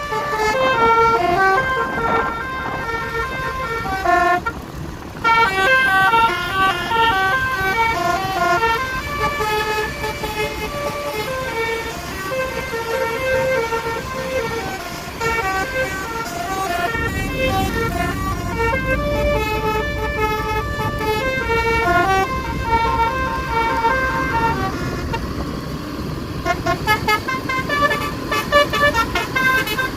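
Tour bus basuri musical horn playing a tune: a quick run of short notes stepping up and down, over road traffic. A deeper engine rumble joins about seventeen seconds in.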